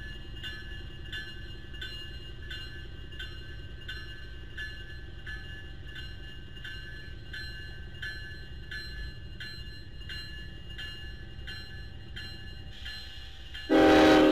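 Grade crossing bell ringing steadily, about two and a half strokes a second, over the low rumble of Norfolk Southern freight locomotives passing. Near the end a short, loud locomotive horn blast sounds, then cuts off.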